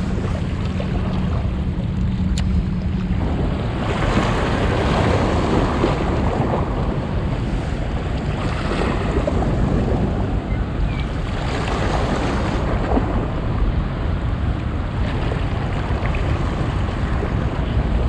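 Wind buffeting the microphone over small river waves lapping at the bank, the water noise swelling in a few washes. A low steady hum runs under it and stops about three seconds in.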